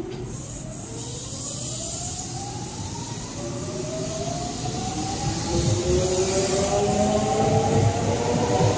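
Kintetsu 3200-series electric train pulling away and accelerating: its VVVF inverter and traction motors whine in several tones that rise together, over a growing rumble from the wheels, getting louder as it gathers speed.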